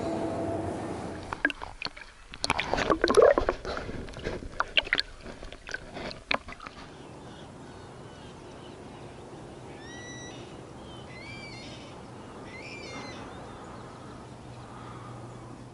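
Water splashing and sloshing in irregular bursts for several seconds as a fish is let go by hand beside a float tube, then calm lakeside ambience with a bird giving three short rising calls.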